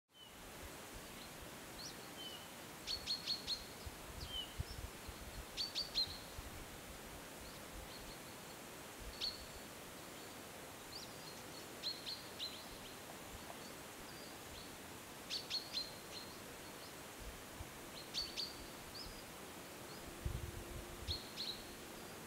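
A bird calling: short, sharp, high chirps in quick bunches of three to five, repeated every few seconds, over a faint steady outdoor hiss. Low rumbles come in near the end.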